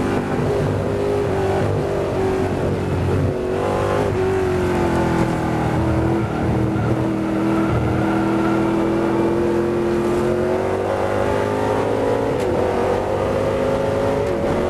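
Onboard sound of the McLaren M1b's Chevrolet V8 at racing speed: the engine note drops as the car slows through corners, then climbs steadily as it accelerates hard onto the straight, with a brief dip in the rise near the end.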